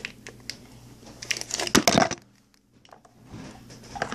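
Handling noise from hands working a plastic glue bottle and stirring slime in a plastic tub: small clicks and rustling, with a louder crackle about two seconds in, then a moment of near silence before the handling resumes.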